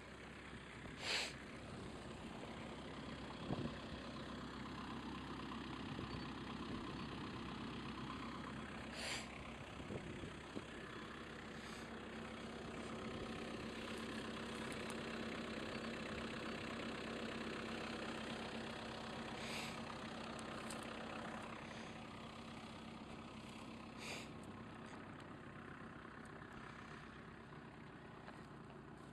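An off-road 4x4's engine running steadily, its hum growing a little louder midway and easing off near the end, with a few brief sharp clicks scattered through.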